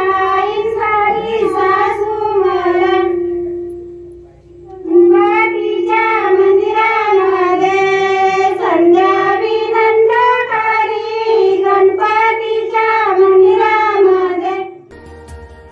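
Women singing a Marathi wedding folk song together, with a short break about a quarter of the way in before the singing starts again. Near the end the singing cuts off abruptly, giving way to quieter instrumental music.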